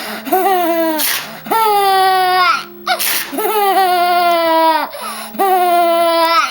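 A young child shrieking with laughter in long, high squeals, set off each time the protective plastic sheet on a laptop is ripped. The short rasping rip of the plastic comes three times, about two seconds apart, each followed by another squeal.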